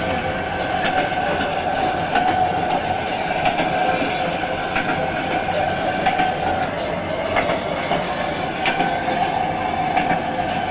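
Trans-Siberian passenger train running along the track: a steady rumble of the moving carriage with scattered clicks and knocks from the wheels over the rails.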